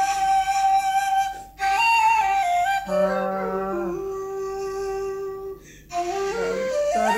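Background music: a slow melody of long held notes on a flute-like wind instrument, stepping from note to note, with a short pause near the end.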